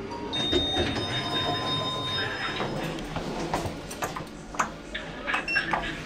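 Otis Gen2 lift arriving: a steady high electronic tone sounds for about two seconds, then the stainless-steel sliding doors open amid several clicks and knocks.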